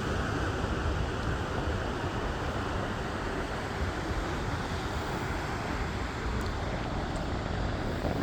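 Wind buffeting the microphone, a steady rumbling rush, over the wash of sea surf.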